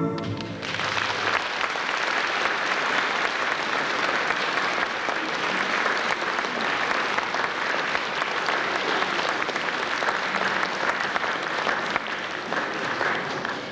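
Audience applauding steadily, starting as the last note of orchestral music dies away about half a second in.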